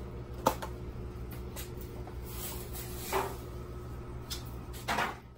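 Quiet room tone with a steady low hum. A single sharp click comes about half a second in, followed by a couple of soft, brief knocks or rustles around three and five seconds in.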